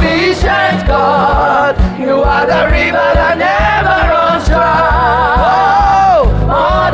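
Gospel worship music: voices sing long, wavering notes over bass and a steady drum beat.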